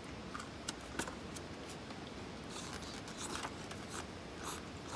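Light handling noises of a clear plastic takeout container and chopsticks: scattered soft clicks and crinkles of the thin plastic as fried chicken is picked out.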